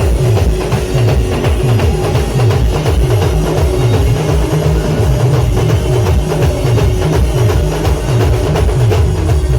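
Loud band music driven by fast, heavy drumming, with a repeating bass line and a steady held note above it.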